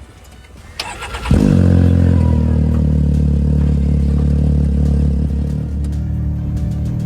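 UTV race car engine cranked over briefly and catching about a second in, then idling steadily.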